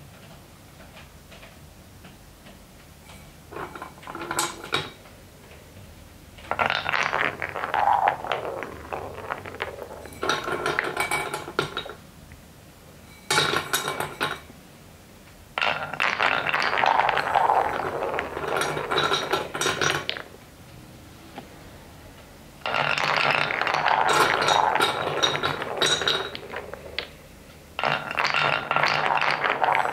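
Colored balls rolling down grooved wooden marble-run track in about seven spells of a few seconds each, a rumbling roll full of small clicks and clacks as they cross block joints and knock into each other. Quieter gaps lie between the spells.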